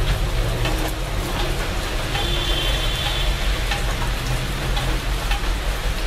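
Steady rain falling on a leafy shrub, many individual drops ticking on the leaves, over a low steady rumble.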